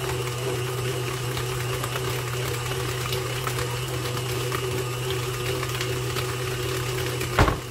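Electric stand mixer with a whisk attachment running steadily, beating cream cheese and powdered sugar. There is a sharp click just before the end, and then the sound gets quieter.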